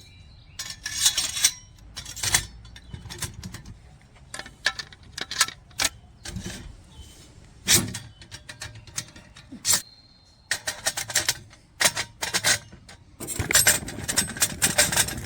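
Metal parts of an ammo-can grill clinking and clanking as they are handled, a run of irregular sharp knocks with a dense cluster near the end.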